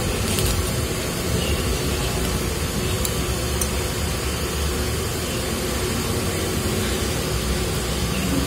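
Steady background noise, a low hum under an even hiss, with a few faint crunches from a crispy fried wonton being bitten and chewed near the start and about three seconds in.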